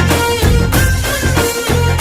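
Background music: an upbeat Bollywood-style song with a steady beat and heavy bass.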